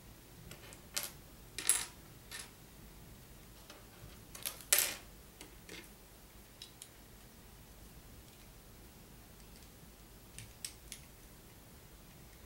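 Small plastic Lego pieces clicking and clattering together, with the crinkle of a clear plastic parts bag being rummaged. Scattered bursts, the loudest two about 2 and 5 seconds in, then a lull with a few light clicks near the end.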